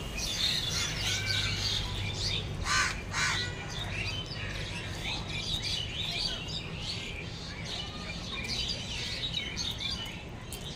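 Small birds chirping and twittering continuously, with two louder, harsher calls about three seconds in.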